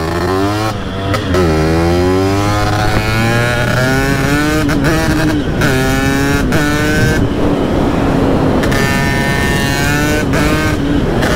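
Vespa 50 Special with a Quattrini M200 two-stroke cylinder kit and a 2L Tech expansion-chamber exhaust, accelerating hard through the gears. The engine note climbs several times, with a short break and a drop in pitch at each gear change.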